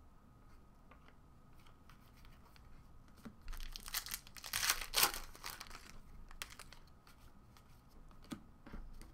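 A trading-card pack's wrapper being torn open and crinkled. The tearing comes in a burst of a couple of seconds about halfway through, loudest near the middle, with a few small clicks of card handling before and after.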